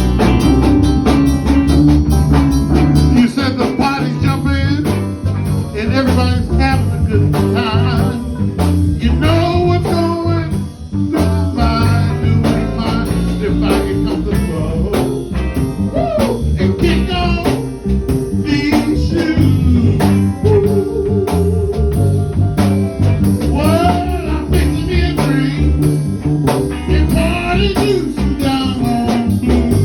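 A band playing a song: a singer with vibrato over bass, guitar and drums keeping a steady beat, in a blues-like style.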